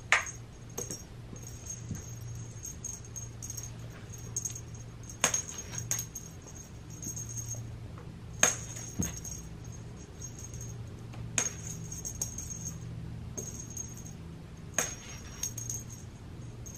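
Five sharp clicks a few seconds apart, over a faint steady hum.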